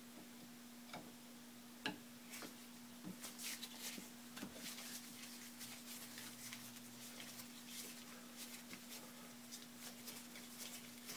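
Faint scrapes and small clicks of a flat-blade screwdriver working a screw loose from the cast-iron gearbox of an Atlas lathe, the sharpest click about two seconds in, over a steady low hum.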